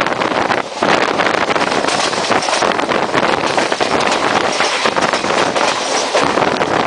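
Indian Railways express train running at top speed: a loud, steady rush of wind and wheel-on-rail noise with rapid clicks running through it, and wind buffeting the microphone. The noise dips briefly under a second in.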